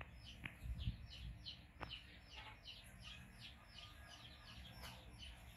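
A bird calling in the background: a steady run of short, high, falling chirps, about three a second. A couple of faint clicks and a soft low bump about a second in.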